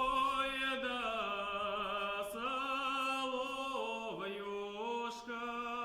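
A single male voice singing unaccompanied, holding long notes with a wavering vibrato and sliding between them: the solo lead-in of a Russian folk lyrical song.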